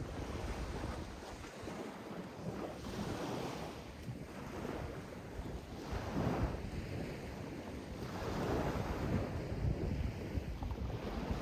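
Sea waves washing in, surging and falling back every few seconds, over a steady low rumble of surf.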